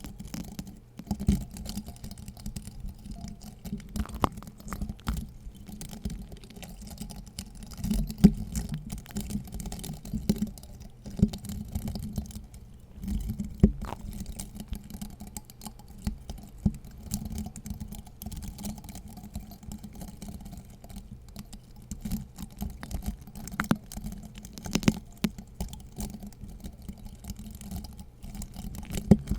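Close-miked ASMR tapping and scratching on objects: a dense, irregular run of small clicks and scratchy rustles, with a few sharper taps.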